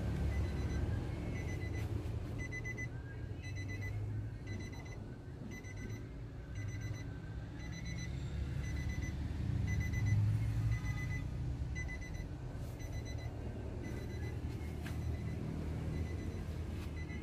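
Nissan Navara pickup's cabin warning chime beeping: a steady run of short, high electronic beeps, over a low steady rumble.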